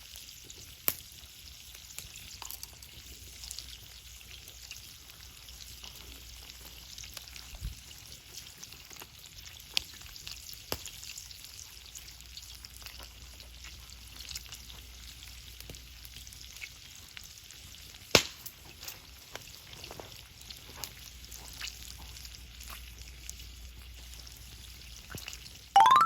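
Cooking over a wood and charcoal fire: a steady sizzling hiss with scattered sharp crackles and pops, the loudest about eighteen seconds in. A short rising sweep comes at the very end.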